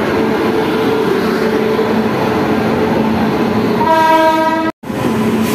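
Indian Railways electric locomotive passing close along the platform with a steady rumble and hum. About four seconds in, a horn sounds for nearly a second. The sound then drops out completely for a split second before the rumble resumes.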